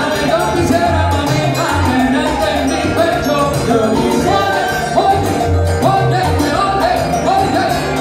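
Live salsa band playing, with congas and timbales in the rhythm section.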